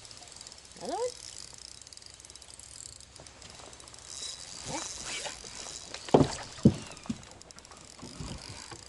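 Spinning reel being cranked against a hooked fish, a fast soft clicking whir. Two sharp knocks about six seconds in are the loudest sounds.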